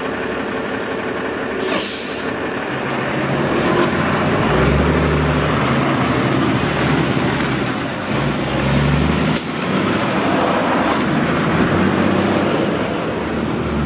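Heavy truck towing a large trailer pulls away: a short hiss of air brakes releasing about two seconds in, then the engine swells and rises and falls as the rig moves off.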